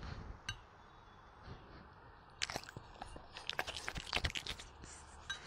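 A dog biting and chewing sweet potato: a single click about half a second in, then a quick run of wet crunches for about two seconds.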